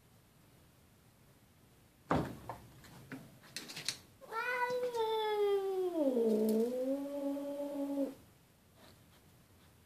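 A cat yowling in one long call of about four seconds that drops in pitch midway and then holds low, a warning yowl at a rival cat through the glass. A sharp knock and a few short clicks come just before it.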